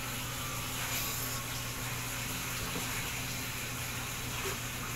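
Steady background hiss with a low, even hum underneath; no distinct sound event.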